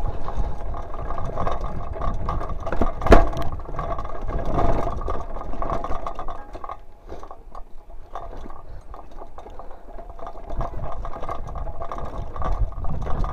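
Mountain bike descending a rocky dirt single track: tyres running over dirt and stones and the bike rattling, with one sharp knock about three seconds in.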